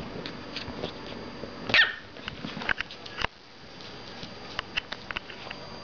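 Pomeranian puppy giving one short, high-pitched yip that drops in pitch, about two seconds in. Light clicks and taps before and after it.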